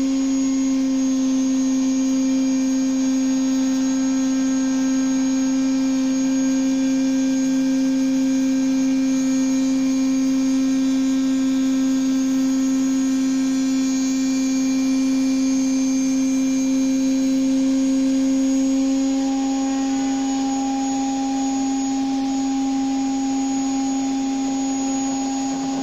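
Table-mounted router running steadily at full speed as tulipwood boards are fed along the fence past the bit, cutting grooves. A higher tone joins the hum about three-quarters of the way through.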